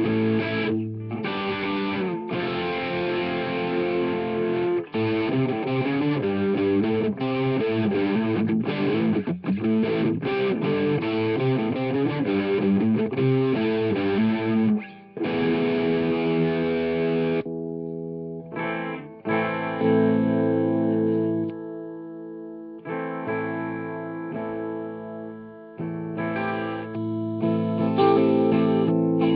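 Red double-neck electric guitar played through distortion: a fast, busy riff for about the first half. After a short pause come slower, held chords that ring out with gaps between them, and it picks up again near the end.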